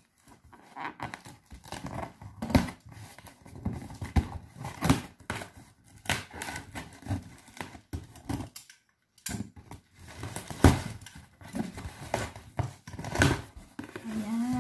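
Scissors slicing through packing tape along the seam of a cardboard box: irregular scrapes, snips and crackles of tape and cardboard, with a short pause a little past the middle. The cardboard flaps are pulled open near the end.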